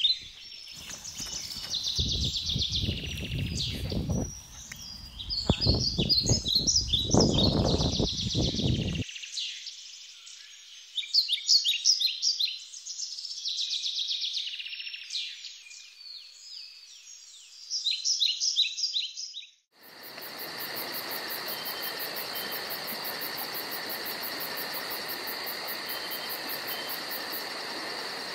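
Many birds chirping and calling at once in a busy chorus, over a low rumble during the first several seconds. About two-thirds in, the chorus cuts off abruptly and gives way to insects trilling steadily, with a fast, even pulse.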